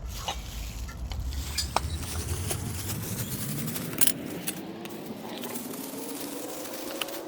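Scattered clicks and light clinks of a plastic fog lamp housing and its bulb-retaining clips being handled and pried open. Underneath is a low rumble that fades about four seconds in, and a faint hum rising slowly in pitch comes in later.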